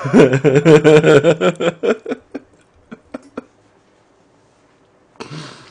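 A man laughing loudly in a quick pulsing burst of about two seconds that trails off into a few short separate gasps, then a breath out near the end.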